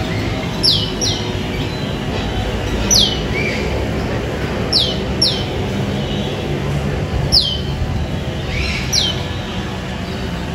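A bird calling: about seven short, sharp, high notes, each dropping quickly in pitch, some single and some in quick pairs, every second or two. A steady low background hum runs under them.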